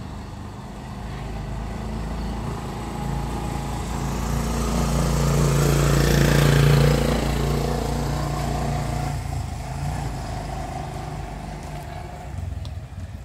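A motor vehicle passing close by: its engine grows louder, peaks a little past halfway, then fades away.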